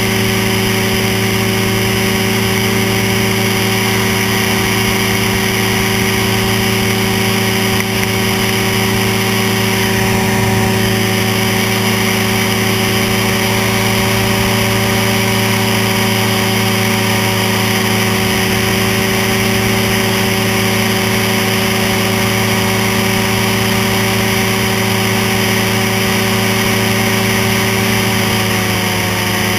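Ultralight flying-boat trike's engine and propeller running steadily in cruising flight, loud and close, with the engine note dipping slightly near the end.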